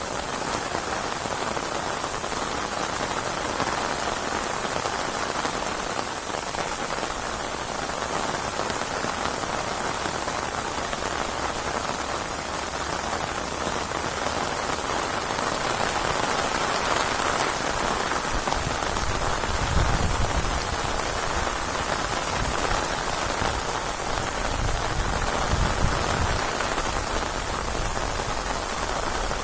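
Steady heavy rain falling and pattering on surfaces, with a low rumble that swells and fades a few times in the second half.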